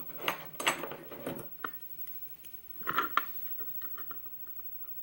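Small metal clicks and scrapes of a tool working at the retaining clip of a half-euro lock cylinder while spreading it off, with a louder cluster of scrapes about three seconds in and then faint light ticks.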